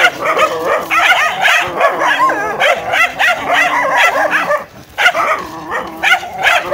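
Several dogs fighting: overlapping snarling, barking and yelping without a break, dropping briefly just before the last two seconds.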